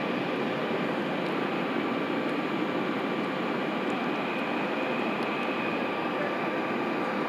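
Jet engines of a Boeing 747-436, Rolls-Royce RB211-524G turbofans, running steadily: an even rush with faint steady whining tones over it.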